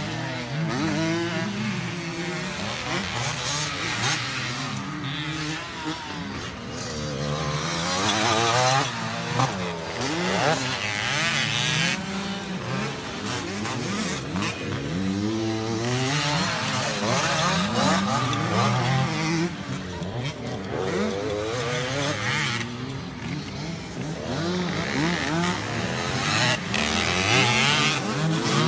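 Several motocross dirt bikes' engines revving hard and easing off, over and over, their pitches rising and falling and overlapping as the bikes race around the track.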